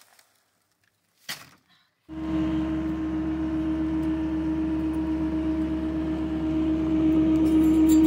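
Paper concrete bags rustle briefly, with one sharp knock about a second in. About two seconds in, a compact track loader's diesel engine starts being heard, running steadily as it drives with a steady hum, growing louder near the end as it comes closer.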